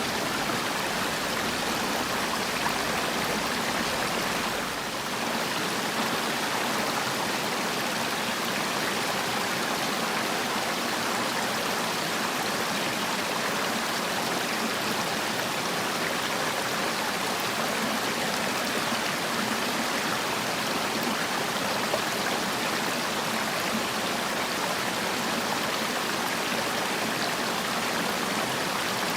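Valley stream water flowing in a steady, even rush.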